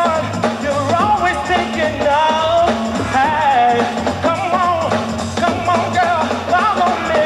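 Live new jack swing band playing, with a lead vocalist singing a sliding melody over a steady bass line and drums.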